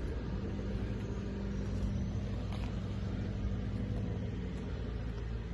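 Car engine running steadily at idle, a low even hum.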